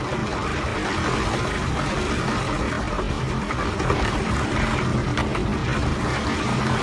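Typhoon storm noise: strong wind buffeting the microphone over surging, crashing seawater, a steady loud rushing rumble with no pauses.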